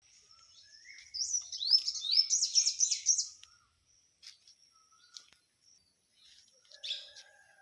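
Bird song: a rapid run of bright, rising chirps from about one to three and a half seconds in, then a few scattered fainter calls and one more short call near the end.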